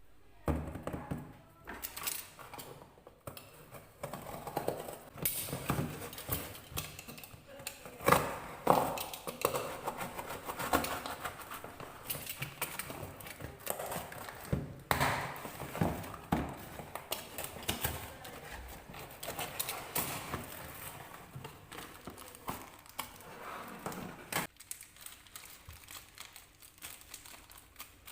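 Hands handling a camera box and its packaging: irregular knocks, taps and scrapes with some rustling, quieter for the last few seconds.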